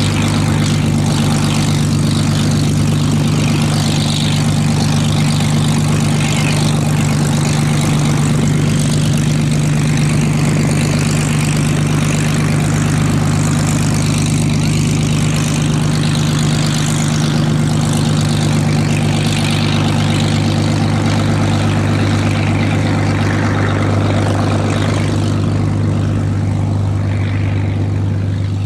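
Hawker Hurricane Mk.I's Rolls-Royce Merlin III V12 engine running steadily at low taxiing power, propeller turning, with a deep, even note. The sound fades slightly near the end as the aircraft moves away.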